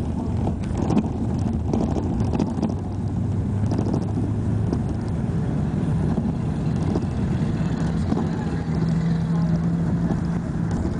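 Engine and road noise of a moving motor vehicle: a steady low rumble with an engine hum that steps up in pitch about halfway through.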